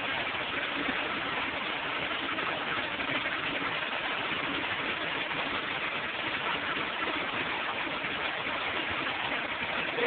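Commercial flushometer toilet in mid-flush: a steady, unbroken rush of water through the exposed flush valve into the bowl. The flush is part of a run of about two minutes because the valve is slow to shut off.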